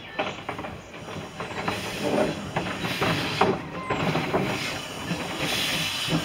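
Narrow-gauge steam locomotive moving slowly, with steam hissing and irregular clicks and knocks from the wheels and motion. The hiss swells near the end.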